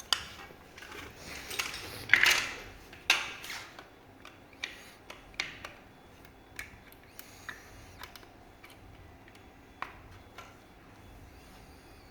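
Irregular clicks, knocks and light clatter of parts and tools being handled during disassembly of a rear fender, with a louder scraping rattle about two seconds in and the knocks thinning out toward the end.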